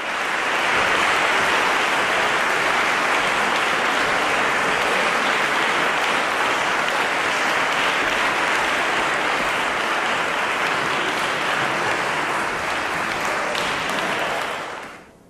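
Audience applauding steadily in a hall, the clapping fading out near the end.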